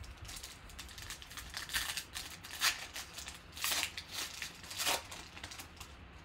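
Foil wrapper of a 2018 Panini Select football card pack crinkling and being torn open by hand. It comes as a series of short crackly rustles and rips, the loudest a little past halfway.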